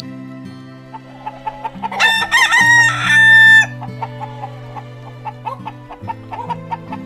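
A rooster crows once, about two seconds in, a loud call ending on a held note, with scattered chicken clucks before and after. Light background music plays underneath.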